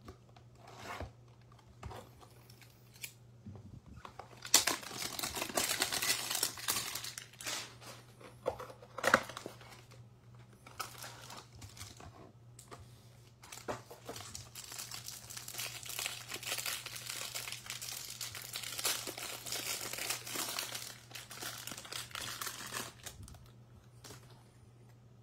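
A Prestige football trading-card hanger box being opened by hand: a few light clicks and taps, then long stretches of cardboard tearing and packaging crinkling as the card stack is pulled out and unwrapped.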